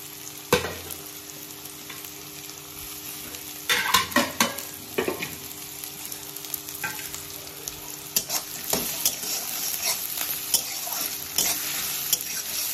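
Sliced onions and crushed ginger-garlic sizzling in hot oil in a metal kadai, with a metal spatula scraping and clinking against the pan. There is a single knock about half a second in, a burst of scraping around four seconds in, and more frequent scraping strokes in the second half.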